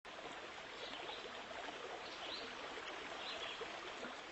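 Steady rush of running water, with a few short high chirps over it.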